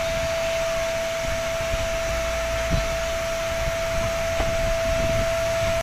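Pressure washer running steadily, its spray hissing on a motorcycle as it is washed, with a constant high-pitched whine from the machine.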